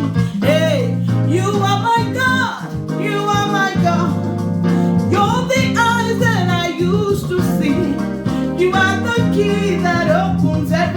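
Gospel worship song: a voice singing over a band with guitar.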